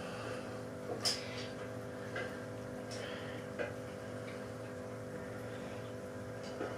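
A few sharp clicks and light knocks at irregular intervals, the loudest about a second in, over a steady electrical hum. They come from a caulking gun being worked to squeeze a bead of silicone sealant from its tube.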